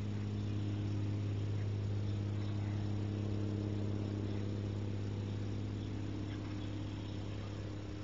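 Steady electrical hum with a buzzing edge, picked up by the nest-box camera's microphone, over a faint hiss.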